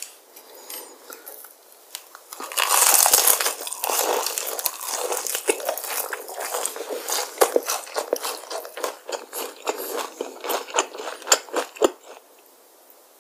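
A bite into crispy fried chicken about two and a half seconds in, then close-up crunching and chewing of the crackly breaded coating, with many sharp crunches until near the end.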